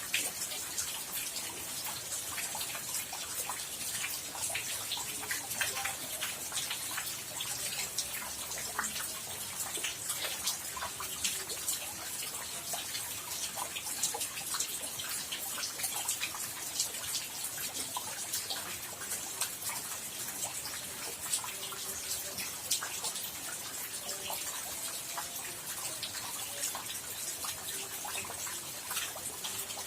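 Rain falling steadily, with many close drops and drips ticking sharply and irregularly over an even hiss.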